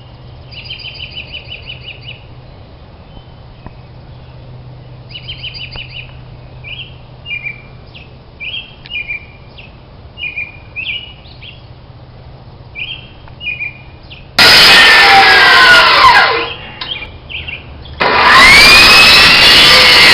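Small birds chirping and trilling repeatedly over a low steady hum. About fourteen seconds in, a much louder machine sound with gliding pitch cuts in, drops away about two seconds later, and comes back near the end.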